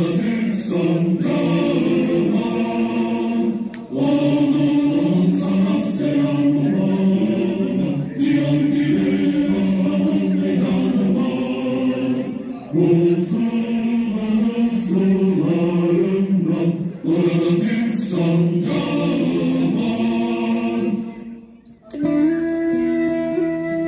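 A choir sings held notes in phrases, with short breaks every few seconds. About 22 seconds in, the singing dips and gives way to an instrumental melody of quicker stepping notes.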